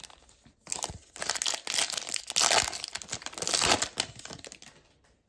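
Foil wrapper of a hockey trading-card pack crinkling and tearing as it is opened, a dense crackly rustle lasting about three seconds that fades out near the end.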